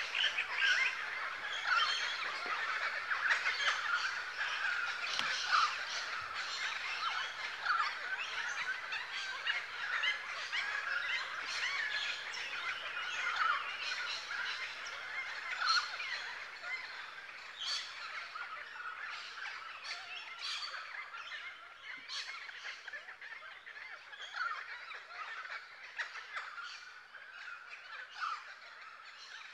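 Many birds calling at once in a dense, overlapping chatter, slowly fading out.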